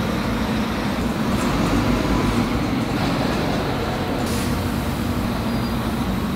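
Bus engines running with a steady low rumble, and a brief hiss about four seconds in.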